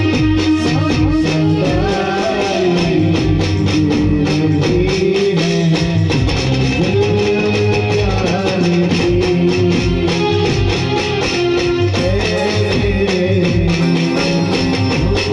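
Music with plucked guitar over a steady beat and a held bass line.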